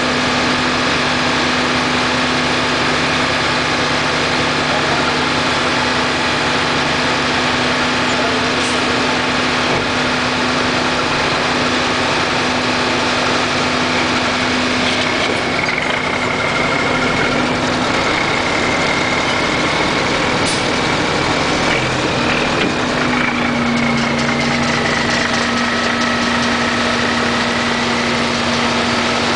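Crane truck's engine running steadily with a constant low hum. About halfway through, a high whine comes in and slowly wavers in pitch.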